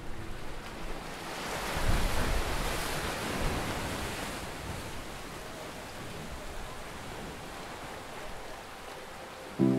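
Ocean surf: a wave breaks about two seconds in and its wash slowly fades away.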